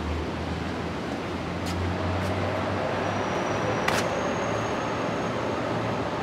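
City street background noise with a steady low hum, and a single sharp click about four seconds in.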